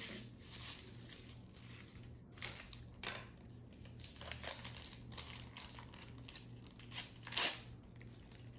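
Plastic toy packaging crinkling as it is handled and unwrapped: a series of short, fairly quiet rustles, the loudest one near the end.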